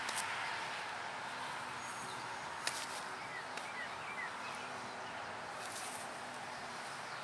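Steady outdoor background hiss with a few short, faint bird chirps three to four seconds in, and a single sharp click a little before them.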